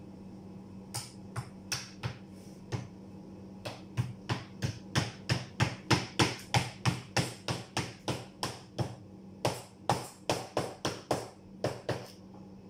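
Hammer tapping blades into a plywood die board: a few scattered strikes, then a steady run of about three sharp taps a second, a short pause, and another run that stops near the end.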